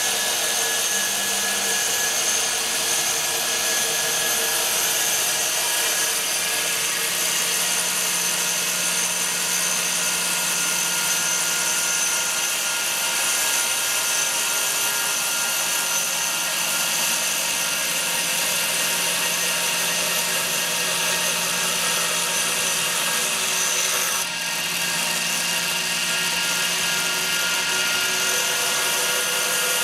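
CNC wire-cutting machine running steadily: a whirring hiss with a high whine, its cutting wire running over pulley wheels as it slices through a foam slab. The noise dips briefly about 24 seconds in, then carries on.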